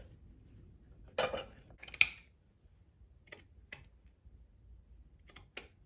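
Scissors snipping and being handled: a scattered series of short, sharp metallic clicks, the loudest about two seconds in.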